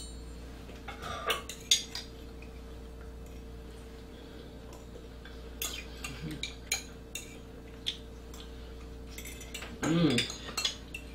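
Forks clinking and scraping on plates in scattered taps as two people eat pasta, over a steady low hum. A short voice sound comes about ten seconds in.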